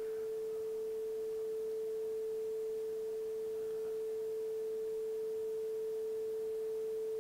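Steady 440 Hz sine tone from a Teensy 3.2's audio-library waveform generator, played out of its DAC through a chorus effect. It holds one unwavering pitch, and the chorus makes little audible difference to it.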